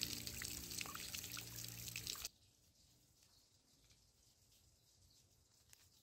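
Garden sprinkler spraying water: a hiss with a patter of falling droplets that cuts off suddenly a little over two seconds in, leaving near silence.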